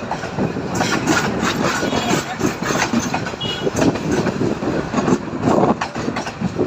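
Karnaphuli Express passenger train running on the rails: a continuous rattle of wheels and carriages with many short, irregular clacks over the track.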